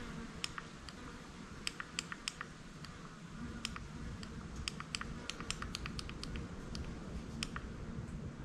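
Small push buttons on a Daytona Velona electronic speedometer clicking in quick runs of presses as a calibration value is stepped in digit by digit.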